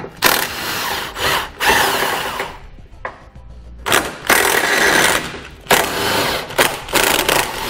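Impact wrench with an 18 mm socket running in several bursts of about a second, with short pauses between, loosening and backing out the bolts that hold a car's rear bumper beam.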